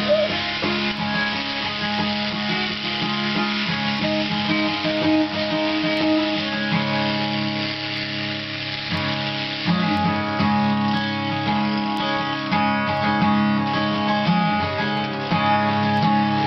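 Acoustic guitar being played, chords ringing on at a steady level.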